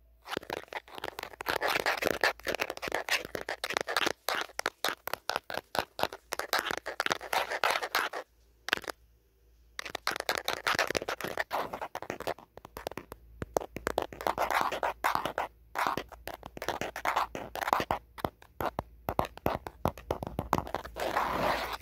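Natural fingernails scratching and tapping rapidly on the back and camera of an old phone, in quick runs of strokes broken by brief pauses, the longest about eight seconds in.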